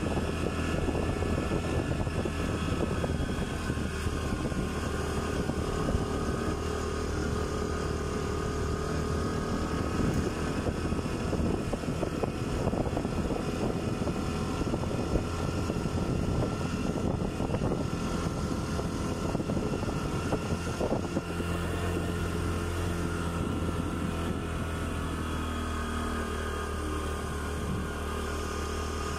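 Motorcycle engine running steadily while riding, a continuous hum without pauses.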